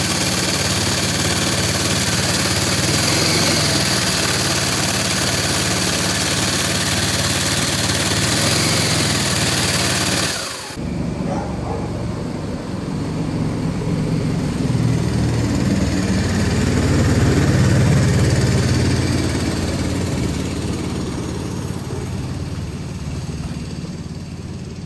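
Predator 459 single-cylinder engine running steadily aboard the jet boat, with water rushing around the hull. About ten seconds in it cuts off abruptly to a duller engine hum over the rushing stream that swells and then fades.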